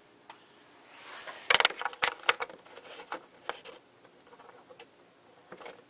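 Plastic engine cover of a Hyundai V6 being worked down onto its mounts by hand: a scraping rub about a second in, then a quick run of sharp clicks and taps of hard plastic, with a few more taps near the end.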